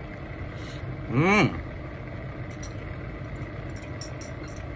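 A woman's short non-word voiced hum of enjoyment while eating, rising then falling in pitch, about a second in. It sits over a steady low electrical hum, with a few faint clicks.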